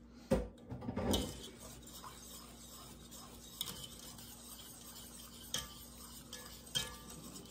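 Wire whisk stirring a thick flour-and-broth sauce in an enamelled pot, scraping the flour off the bottom. There are two knocks in the first second, then soft steady stirring with a few clicks of the whisk against the pot.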